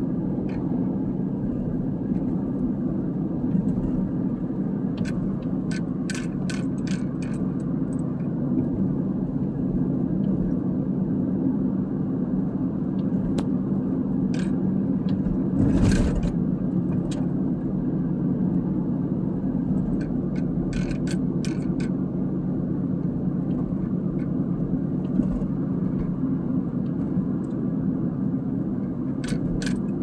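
Steady road and engine noise heard inside a moving vehicle's cab, with scattered light clicks and rattles and one short louder bump about halfway through.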